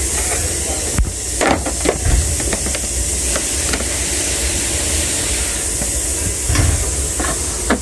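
Scattered clicks and knocks of a 2019 Toyota Land Cruiser's plastic rear bumper trim and clips being pried and pulled loose by hand: a few in the first two seconds and more near the end. They sit over a steady high hiss.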